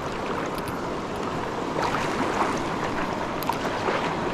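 Fast, shallow mountain river rushing over a rocky riffle close by, a steady wash of whitewater.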